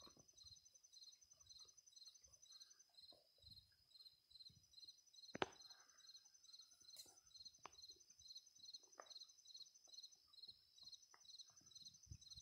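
Faint chorus of insects chirping: a steady, evenly pulsed high trill of about three chirps a second, with a steady high buzz above it. Faint scattered clicks run underneath, and a single sharper click comes about five seconds in.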